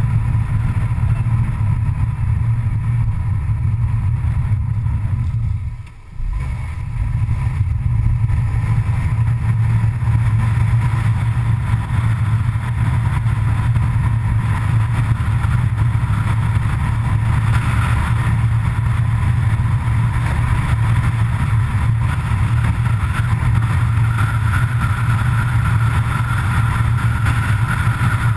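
Steady engine and road noise of a vehicle driving at speed on a paved road, with a brief dip in loudness about six seconds in. A faint higher whine rises near the end.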